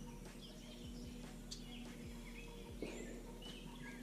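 Songbirds chirping faintly in short scattered calls over steady outdoor background noise.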